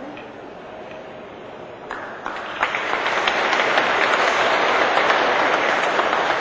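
Audience applauding, starting about two seconds in and growing louder, then holding steady.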